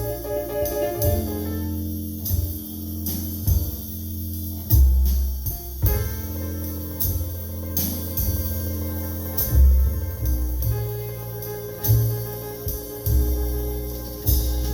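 Small-group jazz recording played over Definitive Technology Mythos ST hi-fi loudspeakers: deep plucked bass notes under piano, with regular cymbal strikes from a drum kit.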